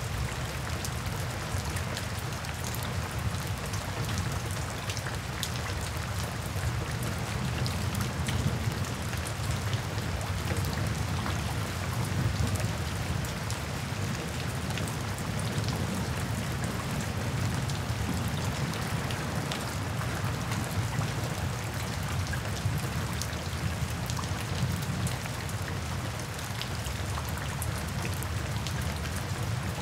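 Steady rain, with many separate drops ticking and splashing on a wet surface.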